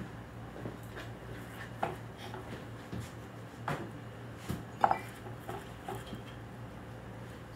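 Scattered light clinks and taps of dishes and kitchen utensils, roughly one a second, the loudest nearly five seconds in, over a steady low hum.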